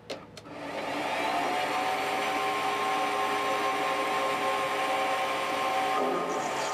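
Small benchtop metal lathe starting up: a few clicks, then the motor and spindle spin up with a rising whine over about the first second and settle into a steady running whine.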